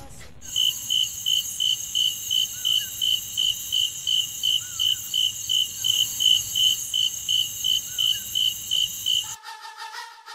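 Crickets chirping in an even rhythm, about three chirps a second, over a steady high hiss: the stock night-time cricket effect used for an awkward silence. It cuts off suddenly near the end as music comes in.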